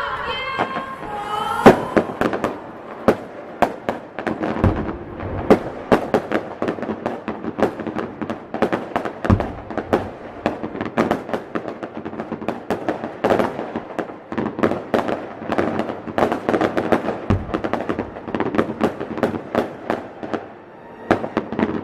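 Fireworks going off in a dense, continuous barrage of sharp bangs and crackles, several a second, with a few deeper booms among them.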